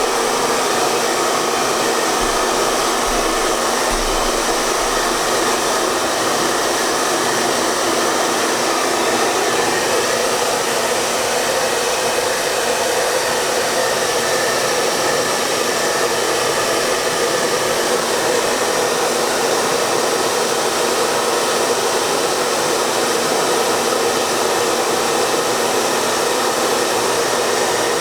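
Hair dryer running steadily: an even rush of air with a steady hum in it, unchanging in level.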